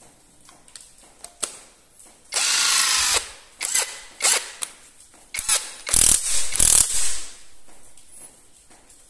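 Cordless power tool from a five-head battery tool kit, its motor run in short trigger bursts: one longer burst of about a second, then a series of shorter spurts.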